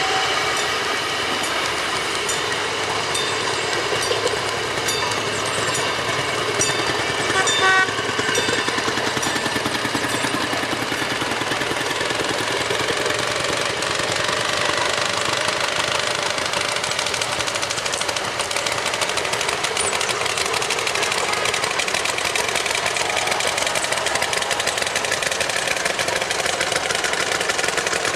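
Rail speeders running past one after another on the track, their small engines chugging steadily. A run of light clicks comes in the first several seconds.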